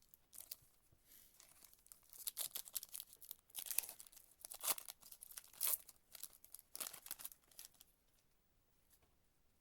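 Foil trading-card pack wrapper being torn open and crinkled, in a run of irregular crackling rips over several seconds that ends about two seconds before the close.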